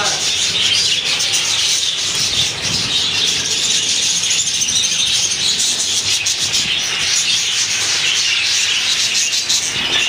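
A flock of budgerigars chattering and chirping together in a continuous dense twitter.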